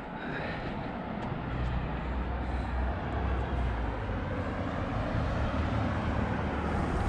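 A motor vehicle's engine running close by: a low, steady hum that sets in about a second in, over a haze of road noise.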